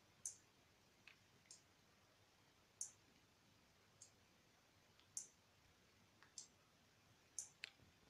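Small relay on an IR remote-control switch kit clicking as it switches a lamp on and off with each remote button press: about ten faint clicks, irregularly spaced.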